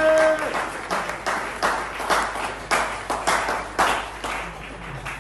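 Audience applauding, with a short rising cheer from one voice at the very start. The clapping thins out and fades toward the end.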